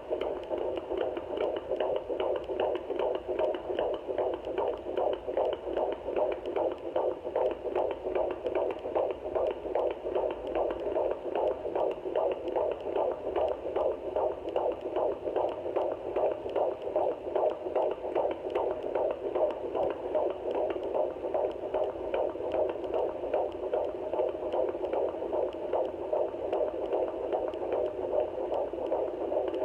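Fetal heartbeat picked up by a handheld home Doppler at 17 weeks of pregnancy: a fast, even whooshing pulse through the Doppler's speaker.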